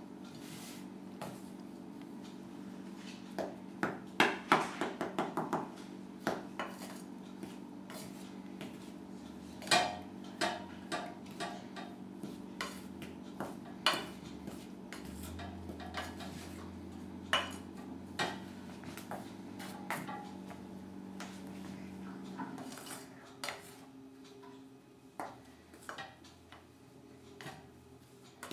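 A spoon clinking and scraping against a stainless steel bowl while stirring together the dry ingredients for zucchini bread (flour, salt, baking powder, baking soda and cinnamon), in irregular knocks with a quick run of taps about four seconds in.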